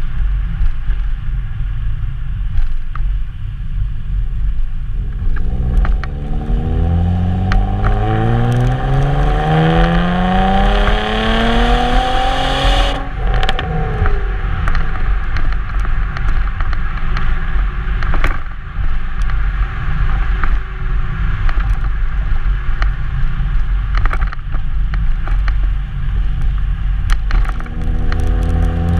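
2002 Nissan Maxima's 3.5-litre V6 exhaust while driving, over a heavy low rumble. A few seconds in, the engine pulls through a gear, its pitch climbing steadily for about seven seconds, then falls away suddenly. It runs steadily again, and starts climbing once more near the end.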